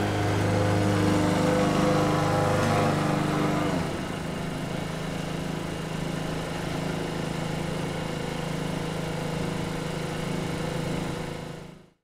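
Rotary push lawn mower engine running steadily. About four seconds in, it drops to a lower, quieter note and runs on, then fades out at the very end.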